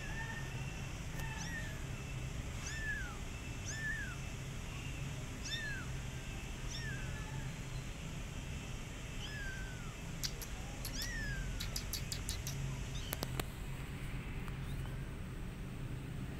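Kitten meowing repeatedly: about eight short, high-pitched meows, each falling in pitch, with a cluster of sharp clicks about two-thirds of the way through.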